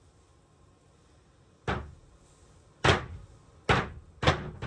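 Hinged plywood bed-platform lid closing onto its wooden frame, about five wood-on-wood thuds, the last three in quick succession near the end. Bare wood meets wood here: no felt pads are fitted yet.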